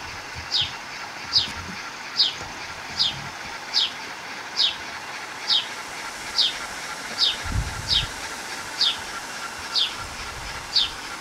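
A bird repeating one short, high call that falls in pitch, about once every 0.8 seconds over a faint steady background. There is a low thump a little past halfway.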